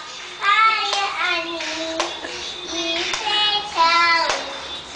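Young girl singing in a high child's voice, with several long held notes that slide between pitches.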